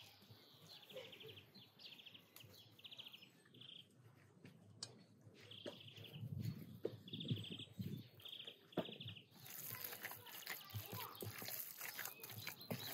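Faint outdoor bird song: short, fast trilled phrases repeated roughly once a second, stopping about nine seconds in, after which a soft outdoor hiss takes over.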